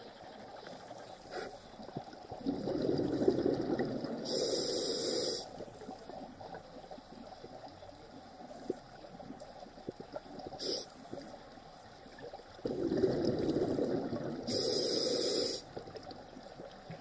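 A scuba diver breathing through a regulator, heard underwater. Twice, about ten seconds apart, a bubbly exhalation is followed by a short, steady hiss of inhalation.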